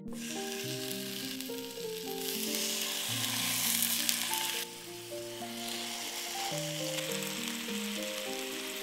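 Raw chicken pieces sizzling as they are laid into hot sunflower oil in a frying pan; the sizzle swells for a couple of seconds around the middle, over gentle background music.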